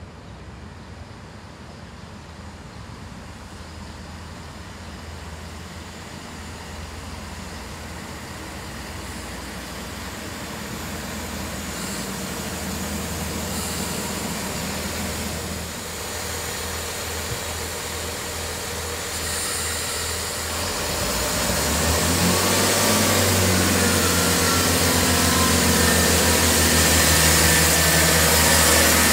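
Diesel passenger train moving along the platform, its underfloor engines and wheels growing steadily louder. The engine note steps up and turns pulsing in the last several seconds.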